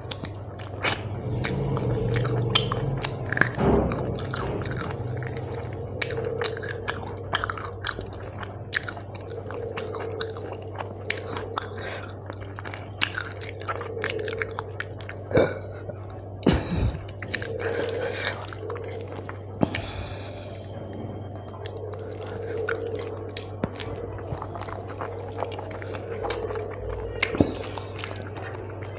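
Close-up chewing of mouthfuls of rice mixed with curry, eaten by hand, with many short mouth smacks and clicks. A steady low hum runs underneath.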